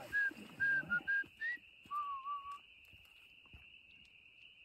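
A steady high-pitched chorus of spring peepers at night. Over it, in the first couple of seconds, comes a run of short, clear whistled notes at slightly different pitches, then one lower wavering note.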